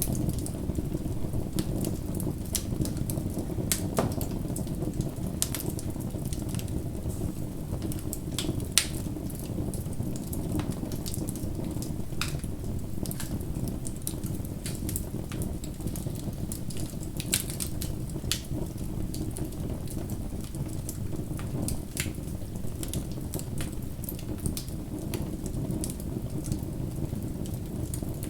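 Campfire crackling: a steady low rush of burning wood with frequent sharp pops and snaps scattered throughout.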